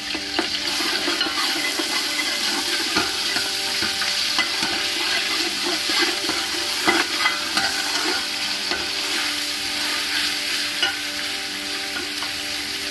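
Ginger-garlic paste and chopped onion frying in hot oil in a metal pot, sizzling steadily. A metal spatula scrapes and taps against the pot as the paste is stirred in.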